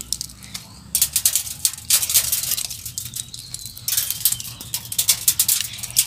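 Rapid, irregular clicking and crackling in several clusters: seeds thrown from dry bursting pods hitting a corrugated metal roofing sheet.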